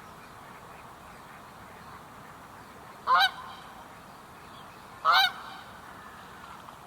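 Common moorhen giving two short, harsh calls, about two seconds apart.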